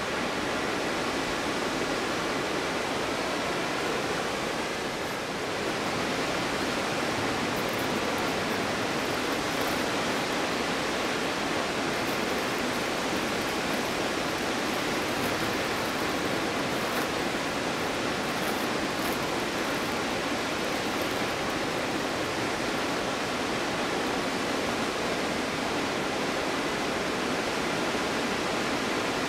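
Stuibenfall waterfall's water falling in a steady, even rush, dipping slightly about five seconds in.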